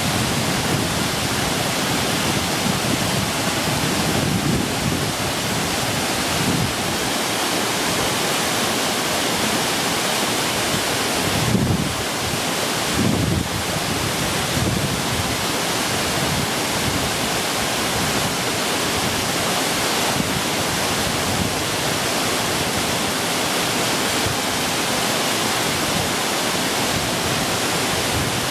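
Waterfall: a steady, loud rush of falling water, with a few brief low buffets of wind on the microphone.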